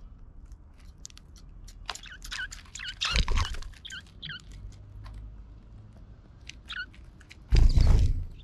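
Eurasian tree sparrows chirping and pecking at seed in a feeder tray, with many sharp ticks of beaks on the seed. Two loud flurries of wings as birds fly off the tray, one about three seconds in and the loudest near the end.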